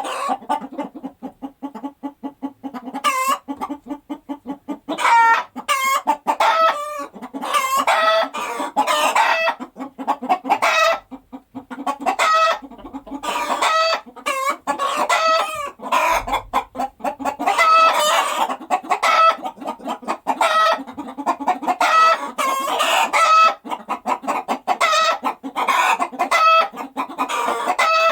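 Hen cackling its egg song after laying: fast runs of clucks broken every second or two by loud, drawn-out squawks, over and over.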